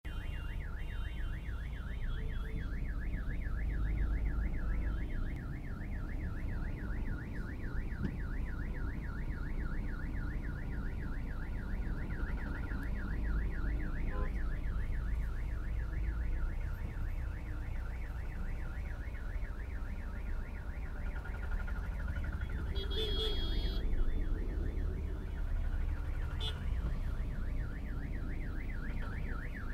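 Ambulance's electronic siren sounding a rapid, continuous warble over the low rumble of traffic. A vehicle horn honks briefly about three-quarters of the way through.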